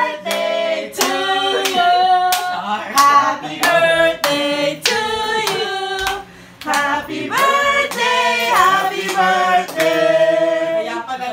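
A small group of family voices singing a birthday song together, with hand claps keeping a steady beat.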